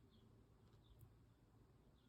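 Near silence: faint room tone, with two faint short high chirps and a faint tick about a second in.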